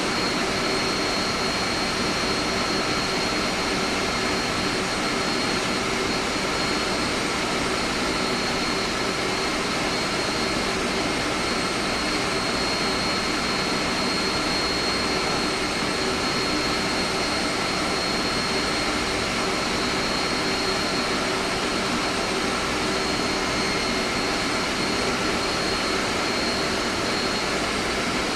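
Air-conditioning plant room machinery running: a steady, even drone with several constant whining tones on top that do not change.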